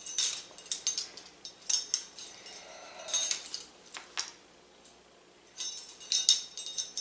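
A ring of metal measuring spoons jangling and clinking in short spells while cumin is scooped from a spice jar, with a short lull about five seconds in.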